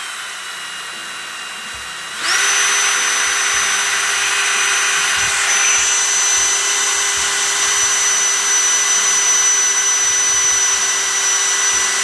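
Cordless drill boring a roughly 6 mm hole through an aluminium seat post. It runs slower and quieter at first, then about two seconds in speeds up to full speed with a steady high whine and keeps cutting.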